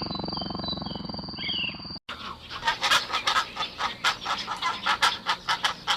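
A big cat's low, pulsing growl with small bird chirps over it, cut off abruptly about two seconds in. A rapid run of short, harsh animal calls follows, several a second.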